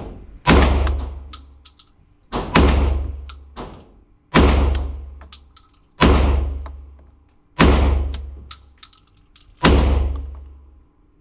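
Beretta 1301 Tactical 12-gauge semi-automatic shotgun firing buckshot: six shots at a steady pace, about one every 1.5 to 2 seconds, each a sharp blast with a deep boom and a fading ring.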